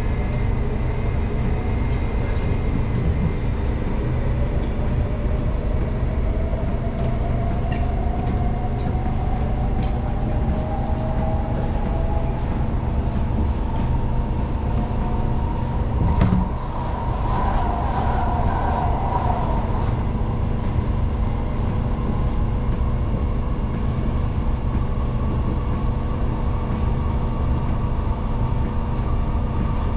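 Cabin sound of a Singapore MRT train pulling away and running on an elevated track: a steady low rumble of wheels on rail, with a motor whine that rises slowly in pitch as the train gathers speed over the first sixteen seconds or so, then holds steady. A single sharp click comes about sixteen seconds in.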